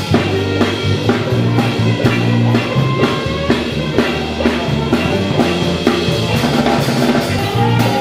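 Live band playing: a drum kit beating a steady rhythm, about two strikes a second, over a bass guitar's low notes.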